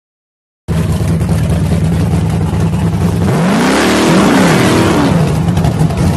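Classic muscle car's engine revving hard while it spins its rear tyres in a donut, with tyre noise. The sound cuts in abruptly under a second in, and the engine pitch swings up and back down around the middle.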